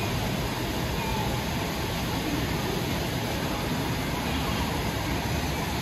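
Rushing whitewater: a steady, even rush of water churning through a rapids channel and spilling over a small waterfall.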